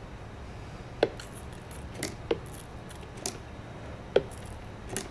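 Yellow trigger spray bottle squirting soapy water, about six short spritzes at irregular intervals, for a soap-bubble leak check on a nitrogen-pressurised refrigeration compressor.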